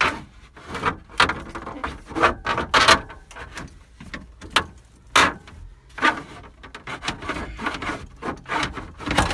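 Plastic lower dash trim panel being forced back into place: irregular knocks, clicks and scraping of plastic against plastic.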